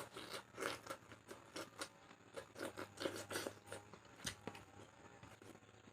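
Close-miked chewing of boiled pork: a string of short, irregular mouth clicks and smacks, a few each second.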